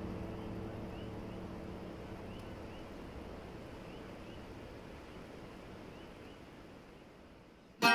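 Soft outdoor night ambience slowly fading toward silence, with faint, repeated little rising chirps. A music tail dies away at the start.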